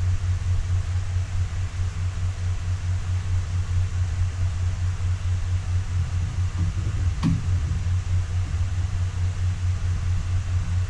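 Electric fan running steadily with a low hum and a hiss of moving air. A single short click sounds about seven seconds in.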